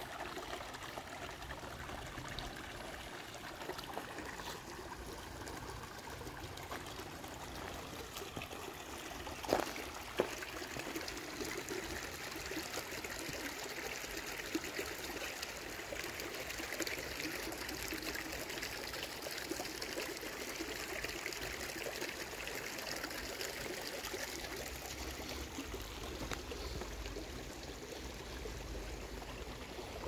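Shallow creek water running over rocks and small cascades, a steady rushing sound, with two short knocks about a third of the way in.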